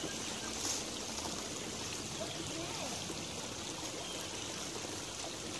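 Shallow woodland creek trickling steadily over leaves and debris.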